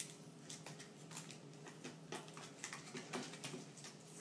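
Faint crinkling of a clear plastic toy packet and sticky tape being handled and picked at, in scattered, irregular soft crackles.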